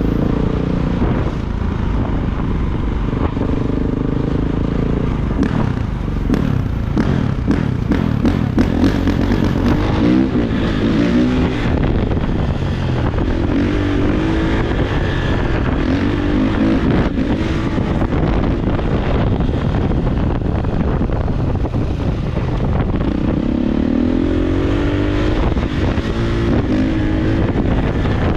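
Kawasaki KX450 dirt bike's single-cylinder four-stroke engine running under way, its pitch rising and falling again and again as the throttle is opened and closed, over a dense rush of wind on the microphone.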